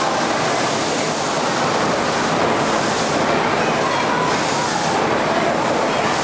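Beijing Subway Line 1 train running along the platform in an underground station: a loud, steady rush of wheels and running gear on the rails, with a faint wavering whine on top.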